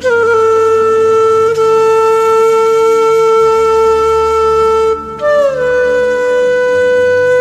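Background music: a flute holds one long note, then about five seconds in moves to a slightly higher note that slides down and holds, over a soft low drone.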